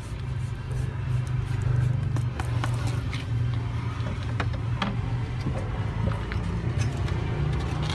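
Steady low motor hum with scattered light clicks and scrapes.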